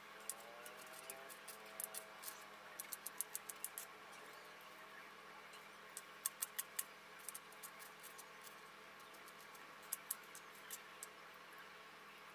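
Kitchen knife chopping onion on a plastic cutting board: runs of quick, sharp taps with pauses in between.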